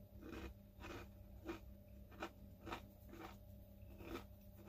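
Someone chewing crunchy cheese snacks with the mouth close to the microphone: faint crunches coming about every half second, over a faint steady hum.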